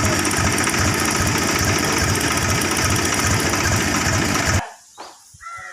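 Chainsaw engine running steadily with a fast buzzing pulse, cutting off suddenly about four and a half seconds in.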